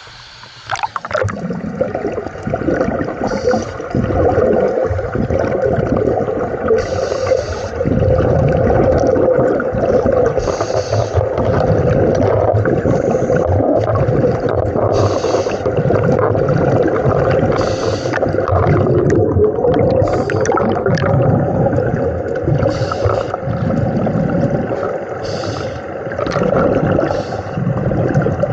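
Underwater sound of scuba diving: the regulator's exhaled bubbles gurgling steadily, with short breathing hisses every couple of seconds. It starts suddenly about a second in.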